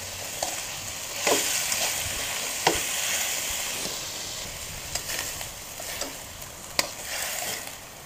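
Vegetables and shredded chicken sizzling in a hot wok while a spatula stirs them, with a few scrapes and knocks of the spatula against the pan. The sizzle eases a little toward the end.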